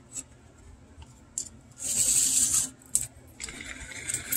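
Pull cord of a vintage talking G.I. Joe's voice box being pulled as a test of the record mechanism. There is a loud scratchy rub about two seconds in, then a longer, quieter scratchy sound near the end, with no clear words: the talker is not playing properly in this configuration.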